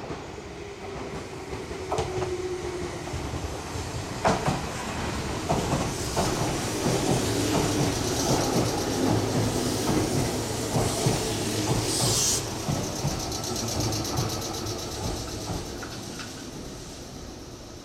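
Meitetsu electric commuter train pulling in along the platform, wheels clattering over the rail joints. It grows louder to a peak, with a short hiss about twelve seconds in, then fades.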